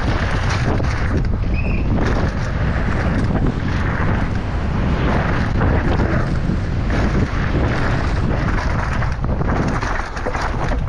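Wind buffeting the microphone during a fast downhill mountain-bike run, a continuous loud rush with constant rattling and knocks from the bike over rough ground.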